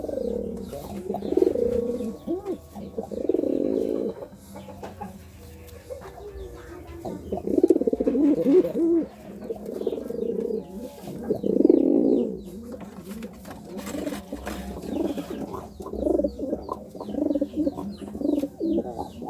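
Domestic pigeon cooing in courtship: repeated low, rolling coos in phrases of a second or two, turning shorter and quicker in the last few seconds.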